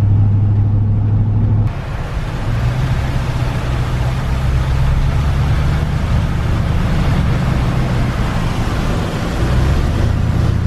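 Pickup truck driving, heard from inside the cab as a steady low engine and road drone. About two seconds in, a steady hiss joins it: the tyres running through standing floodwater on the road.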